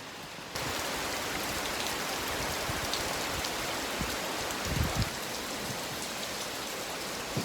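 Heavy rain falling, a steady hiss that gets louder about half a second in, with a couple of low thuds a little past the middle.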